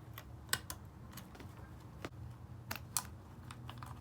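Scattered light clicks and taps of a sliding door cable and its small plastic fittings being handled and threaded by hand, over a low steady hum.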